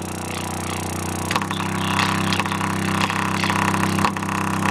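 Bare 6x9 oval car speaker, unmounted, playing a steady low bass tone. The tone grows louder over the first second or so, then holds.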